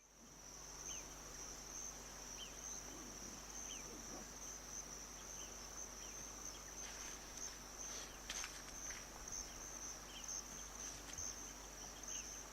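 Faint, steady high-pitched drone of insects, with short high chirps repeating about every second or so.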